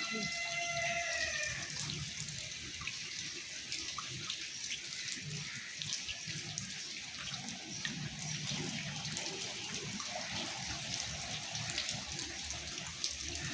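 Monsoon rain falling steadily, with water running and dripping and many small drop ticks. A voice tails off in the first second or two.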